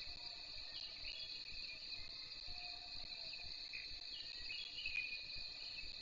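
Steady high-pitched insect chorus, with a few short bird chirps scattered through it.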